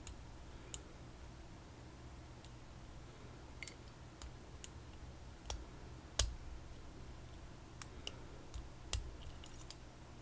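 Lock picks working in a PacLock 90A Pro padlock: irregular, faint metallic clicks and ticks as the pins are set, the loudest click about six seconds in.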